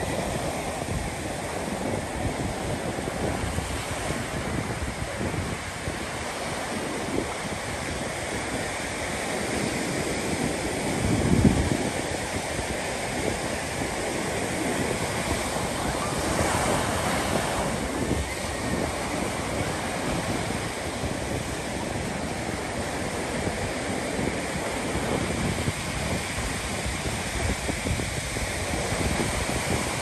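Ocean surf breaking and washing up the sand at the waterline, a continuous hiss and rush of water. A brief low rumble comes about a third of the way in, and a brighter wash swells a little past the middle.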